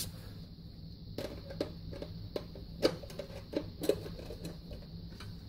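Flat screwdriver backing the screw out of an electric water heater's sheet-metal inspection cover: a run of small, irregular clicks and ticks between about one and four seconds in, over a steady low hum.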